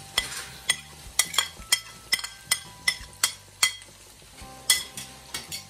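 A metal spoon tapping and scraping again and again against a plate and the rim of a frying pan, knocking diced onion into hot bacon and smoked sausage fat, which sizzles softly underneath. The clicks come about two or three a second, with a louder knock near the end.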